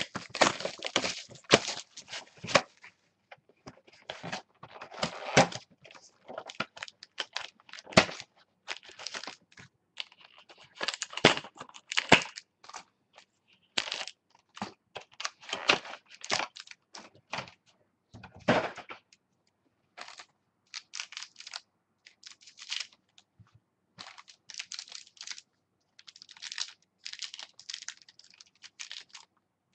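Football trading card packaging being torn open and handled: a dense run of sharp clicks, snaps and crinkles with some tearing, in irregular clusters with short pauses.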